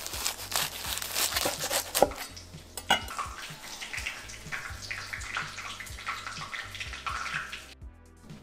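A knife cuts through the crisp deep-fried flour-tortilla shell of a chimichanga on a wooden cutting board, making a dense crackling crunch. The blade knocks sharply on the board about two and three seconds in. The crackling goes on as the crispy halves are pulled apart, then stops abruptly near the end.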